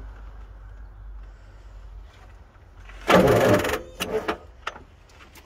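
A starter motor on a 7.3L IDI diesel truck, powered from a portable jump starter, spins for just under a second about three seconds in and stops, followed by a few sharp clicks.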